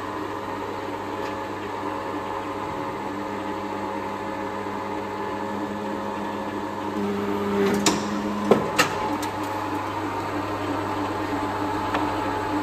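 Iram 12 four-head paper drilling machine running with a steady electric hum. About seven seconds in a deeper hum joins for a second or so, and a few sharp clacks come around eight seconds in as the machine is worked.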